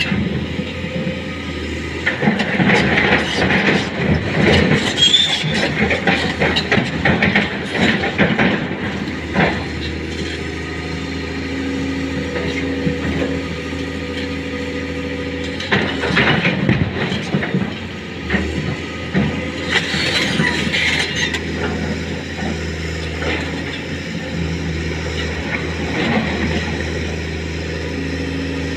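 Excavator's diesel engine running under load with a steady hum and a held hydraulic tone, broken by two long stretches of clattering and clanking, the first through the opening seconds and the second about two-thirds of the way through.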